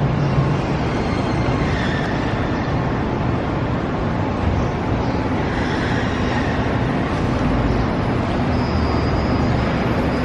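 Steady rumble of a moving vehicle, with a faint high whine coming in near the end.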